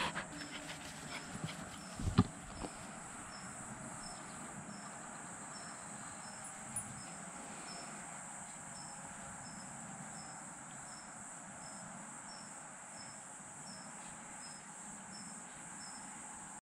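Crickets chirping in the background: a steady high trill with a regular short chirp about twice a second. In the first couple of seconds a few knocks and rustles close by, the loudest about two seconds in.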